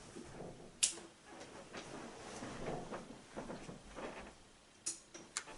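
Small handling sounds: a sharp click about a second in and two more near the end, with soft rustling and light knocks between.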